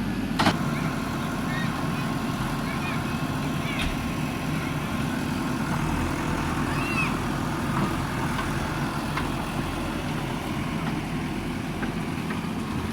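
JCB backhoe loader's diesel engine running steadily, with one sharp metallic knock about half a second in and a few faint high squeaks or chirps over the engine.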